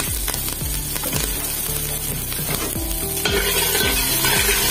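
Chopped green chillies and whole spices sizzling in hot oil in a steel pot for a tadka, stirred with a metal spoon. The sizzle grows louder about three seconds in.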